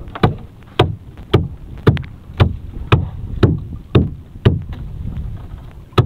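Hollow knocks on a small boat's hull in an even rhythm, about two a second, as a fishing net is hauled in hand over hand over the gunwale, with a low rumble of wind and water beneath.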